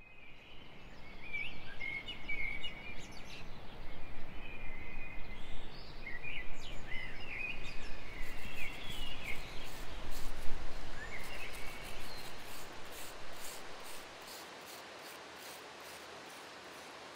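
Birds chirping and calling over a steady rushing background noise. About fourteen seconds in, the rushing drops away, leaving a quieter bed with soft regular scratching strokes, about two a second.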